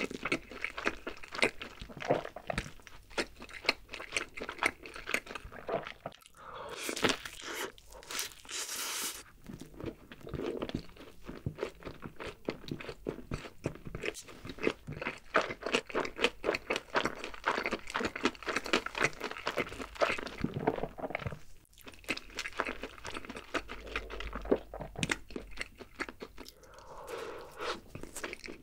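Close-miked chewing of a cheeseburger: a dense run of small wet mouth clicks, with a short noisier passage about seven to nine seconds in.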